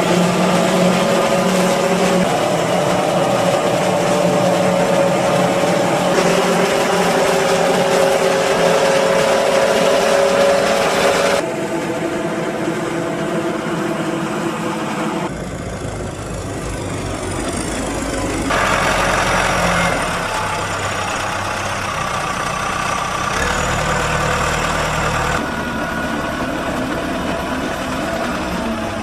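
Forage harvester and tractors with forage wagons running while chopping and hauling maize: a steady engine drone that changes abruptly several times. A high falling whine comes a little past the middle, and a deeper engine rumble dominates later on.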